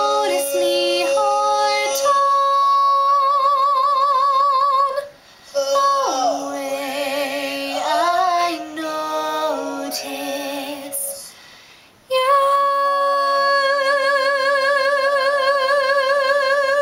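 Young woman's voice holding long sung notes with a wide vibrato, two sustained notes of about five seconds each with a shorter moving phrase between them, the close of a show-tune duet. A lower, steadier note sounds beneath for much of it.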